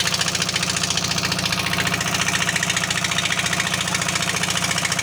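Diesel engine of a heavy machine such as an excavator running steadily at idle, with a rapid, even pulsing knock.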